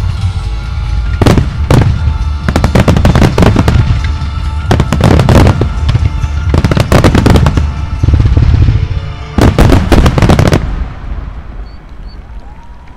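Starmine fireworks bursting in quick volleys of sharp bangs, set to music. About ten and a half seconds in, the bangs and the music stop together and the sound dies away.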